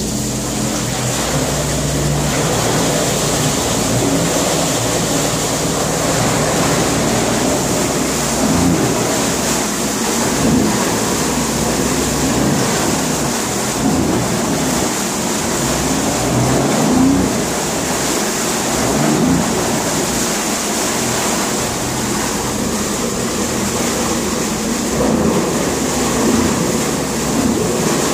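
Sea-Doo RXP 260 personal watercraft's supercharged Rotax 1503 three-cylinder engine idling steadily at about 1,900 rpm in a test tank, with water churning. It is a test run after servicing, with the engine monitored on a diagnostic computer.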